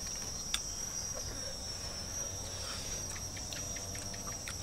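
Steady high-pitched insect chorus, with a few faint clicks of snail shells being handled.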